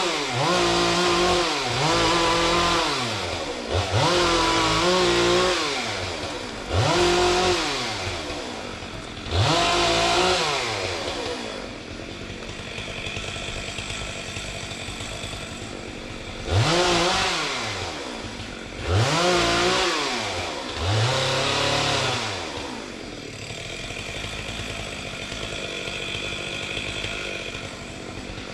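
Chainsaw revved in repeated bursts, its pitch climbing and falling back every second or two. Twice it settles into a quieter, steady run for a few seconds between bursts.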